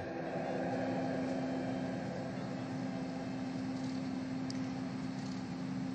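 Steady background hum of a large hangar: one constant low tone over an even hiss, with no change through the pause.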